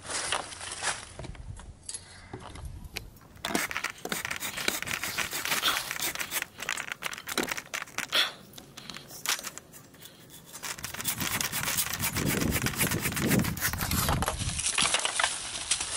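Hand pole saw cutting through a dead red oak branch overhead: a rapid run of rasping saw strokes, turning into a heavier, lower-pitched rasp about twelve seconds in.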